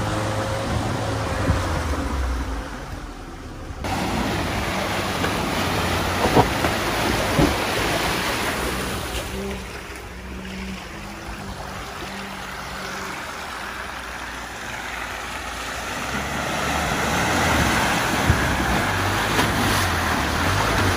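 Off-road car engine working through a deep muddy puddle, with water and mud splashing and a few knocks. The sound changes sharply about four seconds in.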